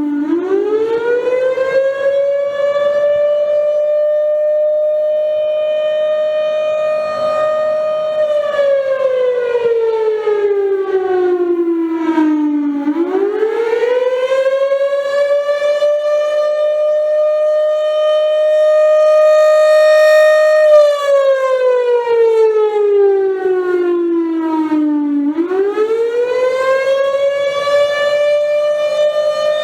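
Federal Signal Thunderbolt 1000 civil defense siren sounding the Attack signal: a loud wail that sweeps up quickly, holds its top pitch for about eight seconds, then slides down. The cycle repeats twice, with a third rise near the end.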